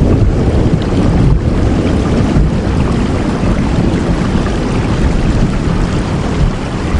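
Heavy rain falling steadily: a dense, even hiss with a strong low rumble underneath.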